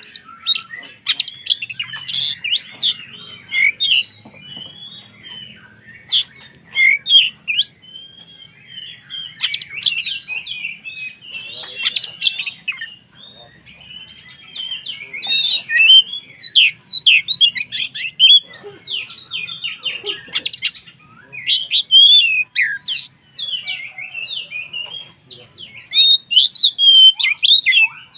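Oriental magpie-robin (kacer) in full song: loud bouts of rapid, varied whistles and chirps, with short pauses between the bouts.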